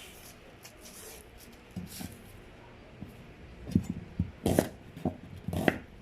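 Kitchen knife chopping on a cutting board: faint handling rustles at first, then about five sharp strikes about half a second apart, starting a little past halfway.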